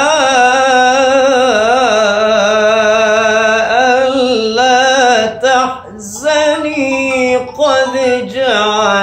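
A man's solo melodic Quran recitation in Arabic (tajwid chanting). It opens with one long, ornamented held phrase of about five seconds, then there is a short breath and shorter melodic phrases follow.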